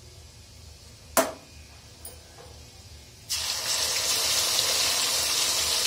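Water-mixed spice paste poured into hot mustard oil in a steel kadhai, bursting into a loud, steady sizzle about three seconds in. A single sharp knock comes about a second in.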